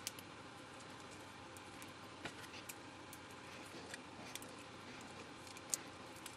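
Faint scattered clicks and taps of small plastic parts as a gas sensor cell is picked apart by hand, over a quiet steady hiss; the sharpest click comes about three-quarters of the way through.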